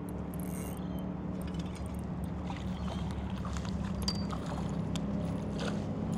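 Water splashing and slapping beside a kayak as a hooked bream thrashes at the surface near the hull, in scattered short bursts, over a steady low hum.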